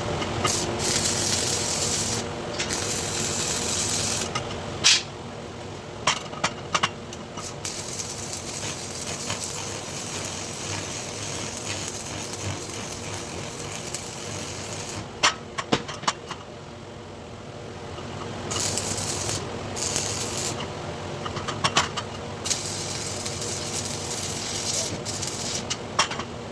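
Electric arc welding crackling in bursts of a couple of seconds, with sharp clicks between the bursts and a steady machine hum underneath.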